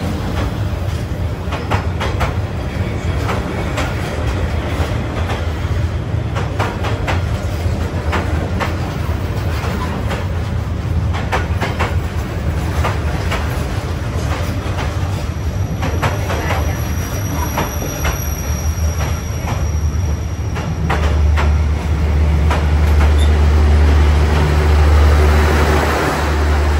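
Passenger train carriages rolling past at very close range: a steady low rumble of steel wheels on rail, broken by irregular clacks over the rail joints. A faint high wheel squeal comes in for a few seconds midway, and the low rumble grows louder near the end.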